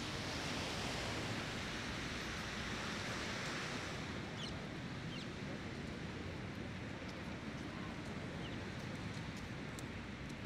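Small waves washing onto a shingle beach: a steady rush of surf that is strongest over the first few seconds, over a low wind rumble on the microphone.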